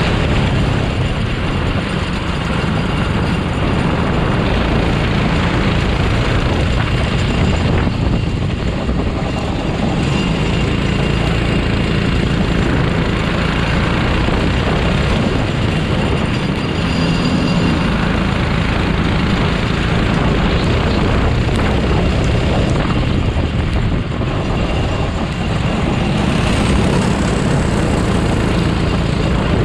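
Racing kart engine running hard and steadily under load, heard from on board the kart.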